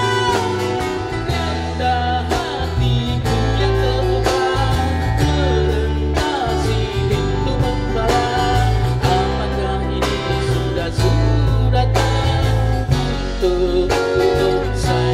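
Live rock music played through a small PA: a male singer's amplified vocals over electric guitar, with a heavy bass line and a steady beat.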